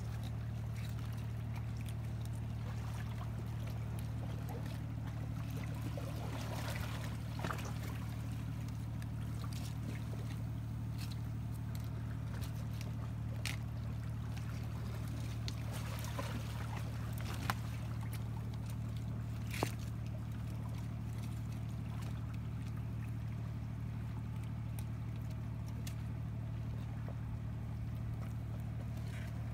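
Steady low engine hum. Faint scattered clicks and scrapes are heard over it, the clearest a little past halfway.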